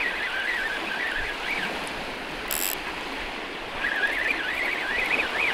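Steady wash of small waves on the shore, with wind. A high warbling sound wavers over it in two stretches, and there is one short hiss about two and a half seconds in.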